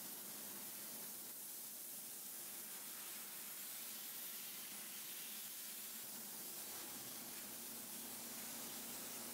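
Soda blaster nozzle spraying baking-soda media at a wooden nightstand to strip its finish: a steady hiss of compressed air and grit.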